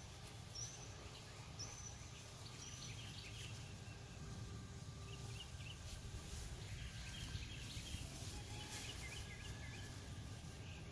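Faint birds calling outdoors: short high chirps about once a second, then a run of quick chirps in the second half, over a steady low rumble.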